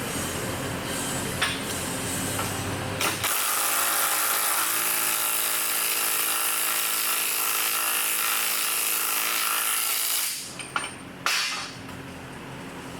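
A power tool starts about three seconds in, runs at a steady speed for about seven seconds, then stops. A couple of sharp clicks follow.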